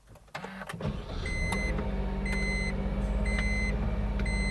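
Honda N-BOX's 660cc turbo three-cylinder engine starting with a few clicks and settling into a steady idle, heard from inside the cabin. Over it a short, high electronic warning beep repeats about once a second.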